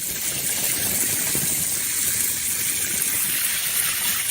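A steady, even rushing noise at one constant level, heaviest in the high range, the kind made by running water.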